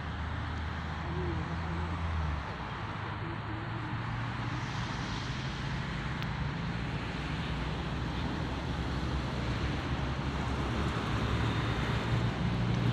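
Electric-powered RC trainer airplane droning overhead, a steady motor-and-propeller hum, growing a little louder near the end.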